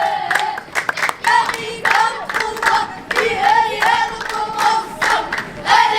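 Several voices singing or chanting together, over frequent sharp hand claps.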